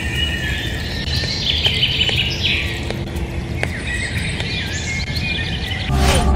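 Birds chirping, with scattered short high calls over a steady low rumble. Near the end there is a short whoosh.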